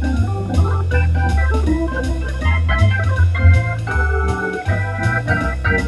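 Hammond organ music: a moving bass line under held chords and a melody, with sharp percussive strokes marking the beat.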